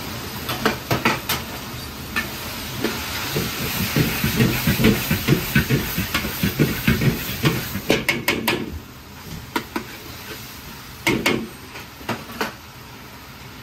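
Pork and squid sizzling in a hot carbon-steel wok, with a quick run of metal stirring strokes scraping and clanking against the wok. About eight and a half seconds in, the sizzle drops away, leaving a few single clanks.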